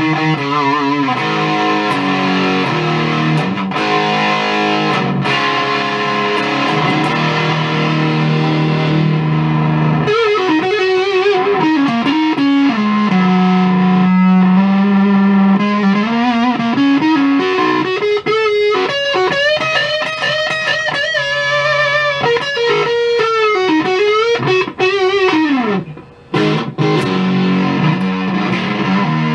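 Electric guitar played through a Maestro FZ-1A clone fuzz pedal, picked up by a phone's microphone. It starts with fuzzed chords, then moves to a single-note lead with bends and vibrato, breaks off briefly near the end and returns to chords.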